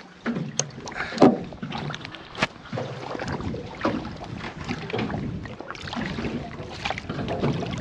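Irregular knocks, clunks and rustling on a small boat as a set net is hauled and worked free of the boat's transducer and propeller.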